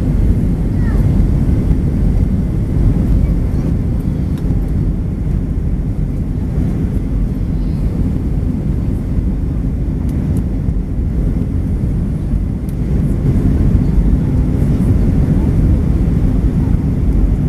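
Airbus A320 cabin noise during the climb after takeoff: the jet engines and rushing air heard from a window seat as a loud, steady low rumble.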